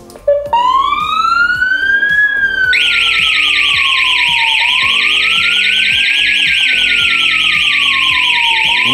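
Futura wireless outdoor alarm siren going off after a short beep: a slow wail rising and falling every few seconds, joined about three seconds in by a loud, fast, high warble.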